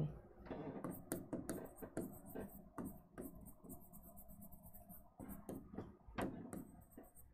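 Faint, irregular light taps and scratchy strokes of a stylus writing words on an interactive whiteboard screen.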